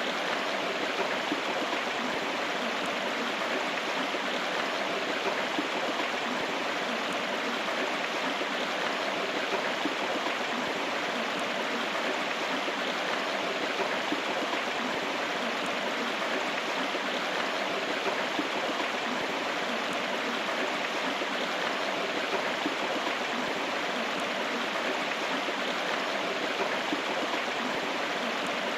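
River water flowing steadily: a continuous rushing of a stream over rocks.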